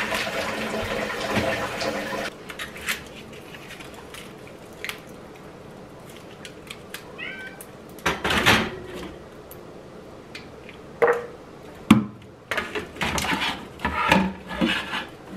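A house cat meowing several times in the second half, among a few knocks of kitchen work. Running tap water stops about two seconds in.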